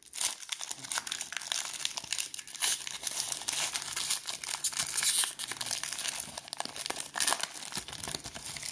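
The wrapper of a football trading-card pack crinkling and tearing as it is opened by hand, a dense run of crackles with a brief lull near the end.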